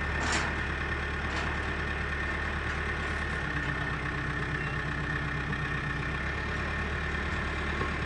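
SZM 932B wheel loader's diesel engine running steadily as the machine drives with its loaded bucket raised. A steady hum joins in for a couple of seconds midway.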